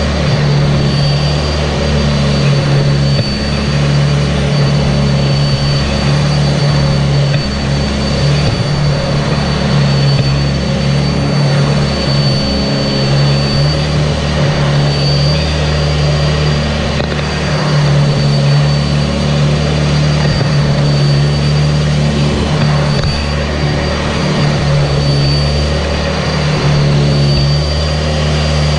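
Sanitaire SC679J upright vacuum cleaner running steadily, its motor giving a constant high whine over a low hum that shifts slightly as the vacuum is worked back and forth.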